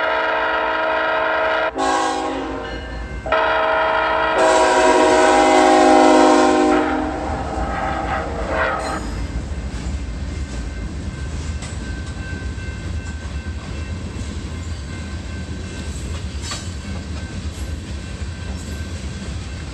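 Train horn sounding at a grade crossing: a long blast, a brief break and a weaker stretch, then a longer, louder blast that ends about seven seconds in. After that a passing train rumbles steadily, with faint clicks of wheels over rail joints.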